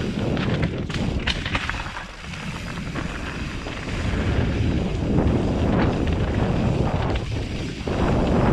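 Mountain bike riding fast downhill over dirt and gravel: wind rushing on the camera microphone and a steady rumble from the tyres and frame, with a cluster of sharp knocks and rattles about a second in.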